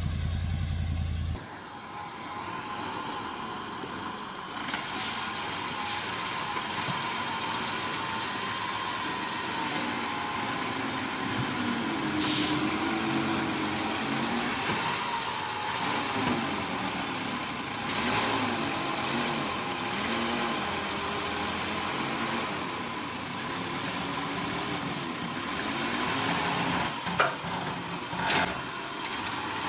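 Heavy truck engine running, its pitch wavering up and down, with a few sharp knocks along the way. About a second and a half in, it replaces a deeper engine sound.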